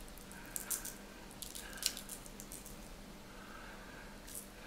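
Barbecue rub spice being shaken out of its container: a few short, dry rattles, clustered in the first two seconds with one more near the end.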